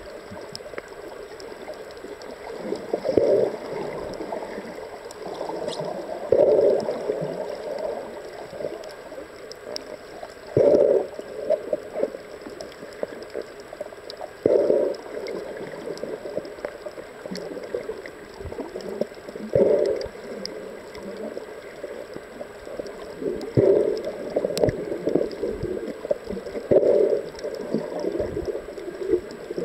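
Muffled underwater water noise picked up by a camera below the surface while snorkeling, with a louder rushing, gurgling burst about every three to four seconds.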